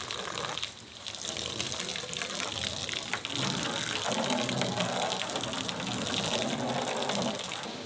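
Garden hose spraying water onto a pickup truck's body, a steady hissing spray that briefly drops off about a second in.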